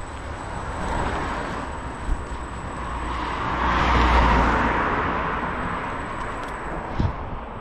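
A car driving past on the road, its tyre and engine noise swelling to a peak about halfway through and then fading away, over a low rumble of wind and wheels. A sharp knock near the end.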